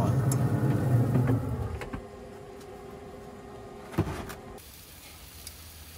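A steady mechanical hum that cuts off about two seconds in, then a single sharp knock about four seconds in as the lid of a pellet grill is shut.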